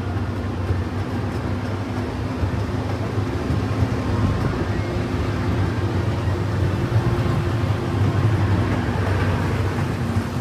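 Casey Jr. Circus Train ride cars rolling along the track: a steady low rumble of the moving train.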